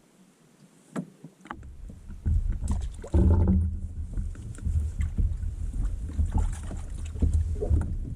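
Canoe being paddled, with a loud low rumble of wind on the microphone and scattered knocks, starting about a second and a half in after a few faint clicks.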